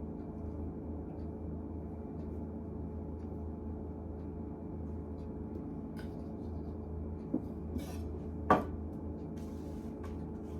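A steady low hum, with a few knocks of kitchen utensils against dishes and brief scraping; the loudest knock, about two-thirds of the way in, rings briefly.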